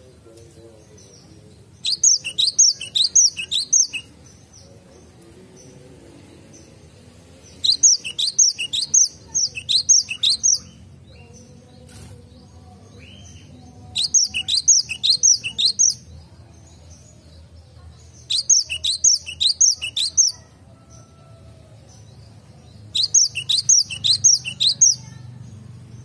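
Cinereous tit (gelatik batu) singing: five bursts of about two seconds each of rapid, high repeated notes, about four a second, with a few seconds' pause between bursts.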